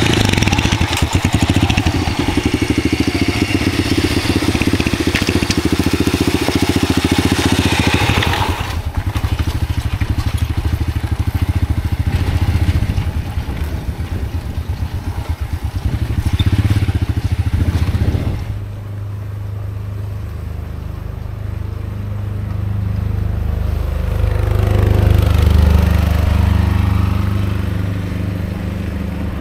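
Small motorcycle engine running while ridden over a rough dirt track, with crunching and rattling from the tyres and frame. The sound changes abruptly twice; in the last third a steadier, lower engine hum carries on.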